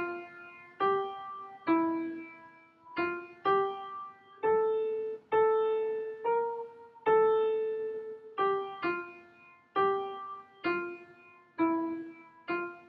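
Upright piano playing a slow phrase of single struck notes, each fading before the next, with the line climbing and then stepping back down.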